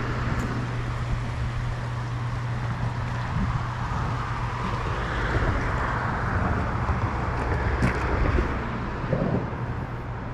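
Steady low hum of an idling engine under a broad rushing noise that swells in the middle and eases off toward the end.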